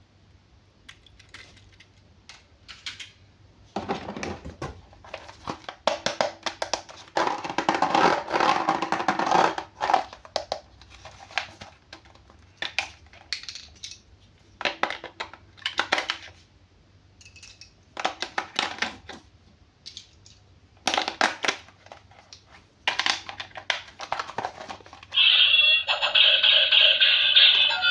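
Plastic toy packaging crinkling and tearing as toys are unboxed, with scattered clicks and thunks of plastic parts being handled. Near the end, a loud electronic tune starts.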